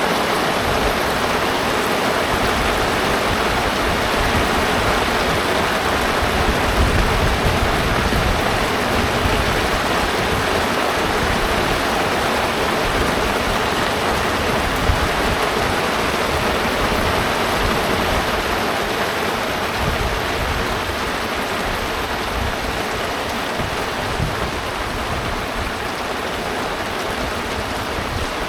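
A steady rushing of water with a rough low rumble beneath it.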